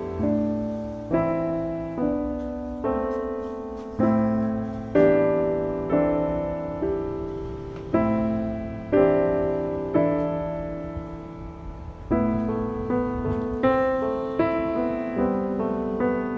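Background piano music: gentle chords struck about once a second, each note dying away before the next.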